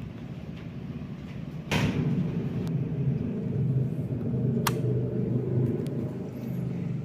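Mitszuko 140 cm industrial ceiling fan running with a steady low rumble. A little under two seconds in, the rumble suddenly gets louder and stays up. A single sharp click comes about two-thirds of the way through.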